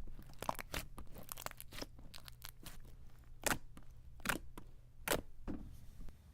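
Clicky slime with a few white foam beads being handled: a string of irregular sharp clicks and pops, a few of them louder.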